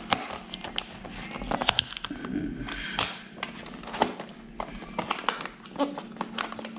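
Keyboard product box being handled and opened by hand: scattered clicks, taps and rustling over a faint steady hum.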